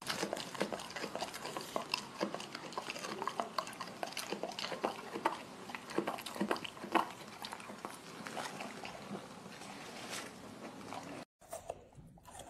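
Golden retriever chewing napa cabbage leaves: many irregular, wet crunches that cut off abruptly near the end.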